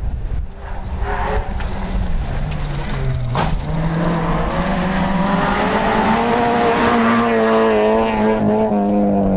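Peugeot rally car's engine approaching on a gravel stage. It drops in pitch as the revs fall off, gives a sharp crack about three and a half seconds in, then pulls hard with a steadily rising pitch as it accelerates past. The tyres hiss on loose gravel under it.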